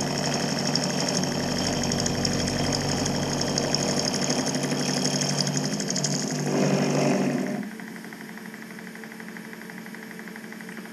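Milling machine with an end mill cutting a chainsaw crankshaft web flat, a loud steady cutting noise. A little past halfway the cutting stops and only a quieter, steady machine hum carries on.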